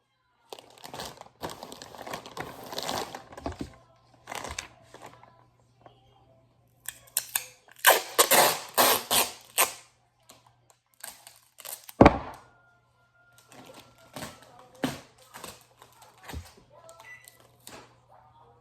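Clear tape being pulled off the roll, torn and pressed onto a paper label on a parcel, in irregular bursts of crinkling and tearing, with a sharp knock about two-thirds through.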